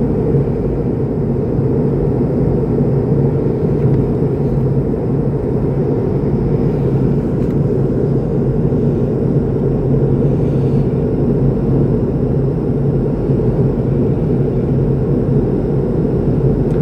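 Steady cabin noise of an airliner in flight, heard from a window seat: a constant low rumble with a steady hum.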